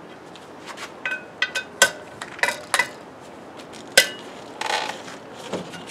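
A series of sharp metallic clinks and knocks with a short ring, from a steel socket wrench being handled and fitted onto bolts on a Model T flywheel. The loudest knocks come about two seconds in and again about four seconds in.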